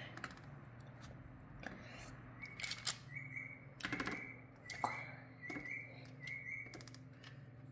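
Fingers pressing and patting cookie-dough rounds flat on a parchment-lined metal baking tray: a scattered series of soft taps and clicks with paper rustle. A faint high steady tone comes and goes in short pieces through the middle.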